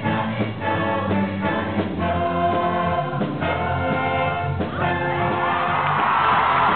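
Stage-musical ensemble singing in chorus with a live pit band, an upbeat rock-and-roll finale number. Near the end, audience cheering and whooping rise over the music.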